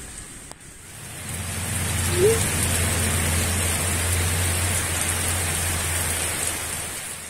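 Heavy rain falling steadily, with a low steady hum underneath and a short rising chirp about two seconds in. The sound swells in at the start and fades out near the end.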